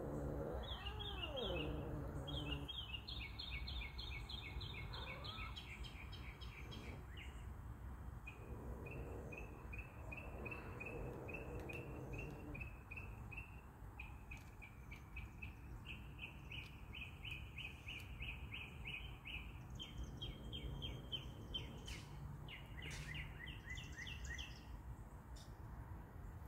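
Birds chirping in repeated runs of rapid high notes, with a low drawn-out cat growl near the start and again around ten seconds in.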